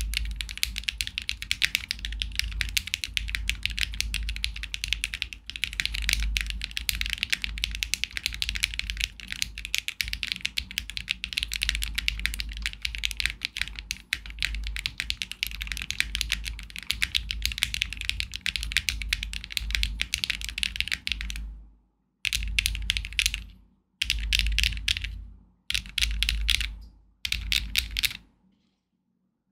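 Luminkey65 mechanical keyboard, built with an aluminium plate and no foam, HMX Sillyworks Hyacinth V2U switches and OTC Modo Light keycaps, typed on fast and continuously. Near the end the typing breaks into several short bursts with silent pauses between them.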